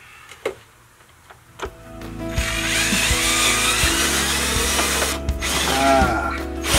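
A few light clicks, then from about two seconds in a power tool runs in spells, briefly easing off twice near the end: tool work taking out a built-in galley fridge.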